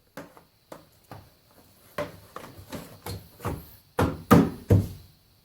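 Irregular knocks and clicks of hand work on the car's rear bumper and trim, with a few louder knocks in quick succession about four seconds in.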